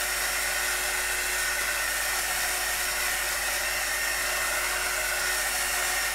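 Handheld heat gun running steadily: rushing air with a steady motor whine, as it is passed over acrylic paint on a canvas.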